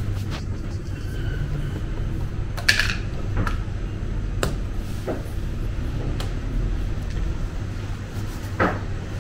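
Scattered knocks and clinks of a baker's tools on a stone counter (a rolling pin set down, a metal dough cutter handled) over a steady low hum. The loudest knock comes about three seconds in, another near the end.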